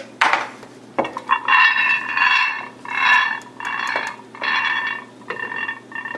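Two knocks, then five short squeaks in a row, each under a second and steady in pitch, as a water-cooled PC case is handled and tilted.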